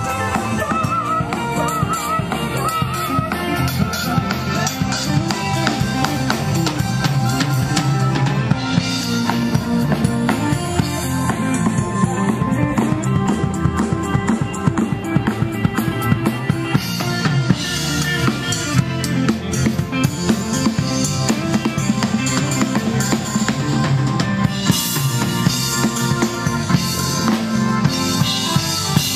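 Music with a drum kit keeping a steady beat, snare and bass drum to the fore.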